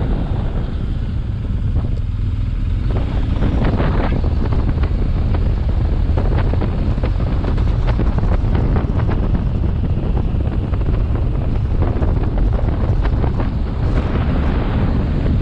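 BMW R 1250 GS motorcycle riding, its boxer-twin engine running under heavy wind buffeting on the microphone.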